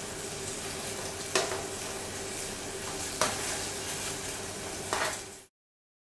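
Bacon sizzling under a grill while it is turned, with three sharp clicks about two seconds apart. The sound cuts off suddenly near the end.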